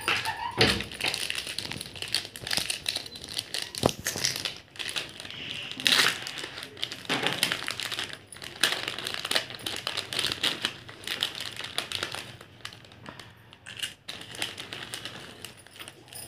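Plastic zip bags and a foil packaging pouch crinkling as they are handled and opened, with irregular crackles throughout and a sharp tap about four seconds in.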